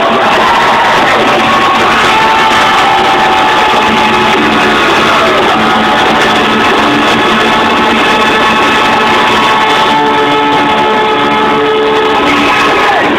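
A live rock band playing loudly, with guitars and long held notes, changing to a run of short repeated notes about ten seconds in.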